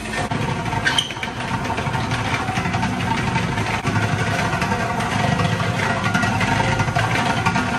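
Industrial mixer's electric motors and worm gearbox running with a steady mechanical hum and whine, and a short click about a second in.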